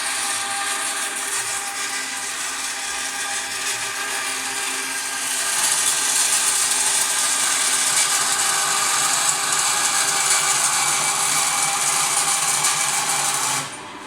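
Forestwest 4.5-inch (115 mm) metal bandsaw running in vertical mode, its blade cutting a curve in aluminium at the fastest of its three belt speeds. The cutting grows louder about five seconds in and cuts off suddenly near the end.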